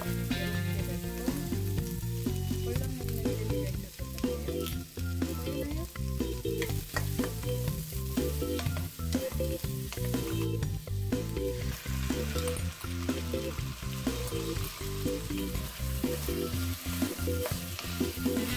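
Sausage pieces, garlic, carrot and onion sizzling in hot oil in a frying pan while a wooden spatula stirs and scrapes them, with frequent short knocks of the spatula against the pan.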